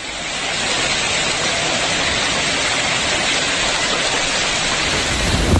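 A steady, dense hiss of storm water, swelling up over the first second and then holding even.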